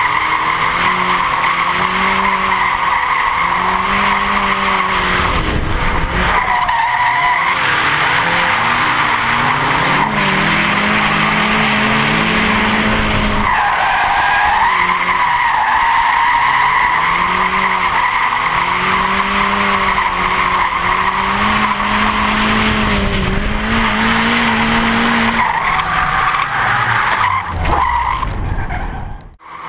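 Turbocharged Mazda Miata's four-cylinder engine revving up and down over and over as the tyres squeal steadily through long drifts. The sound drops out briefly near the end.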